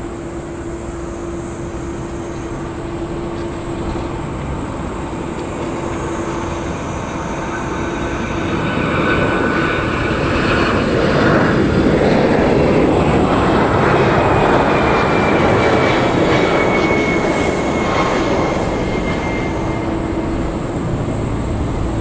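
Jet engines of a Boeing 777-200 airliner running at taxi power as it taxies past, with a steady hum and a faint high whine that slowly falls in pitch. They swell to their loudest about halfway through as the aircraft turns nose-on, then ease off a little.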